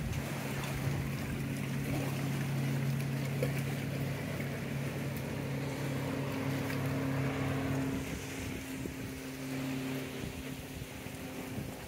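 Speedboat engine droning steadily as it runs across the river, getting quieter about eight seconds in.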